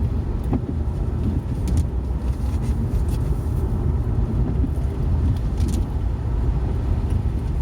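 Car cabin noise while driving: a steady low rumble of engine and tyres on the road, with a few faint clicks.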